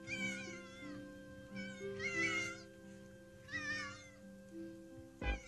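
Young kittens mewing, high and wavering, in several short bouts over soft background music with held notes. A short thump near the end.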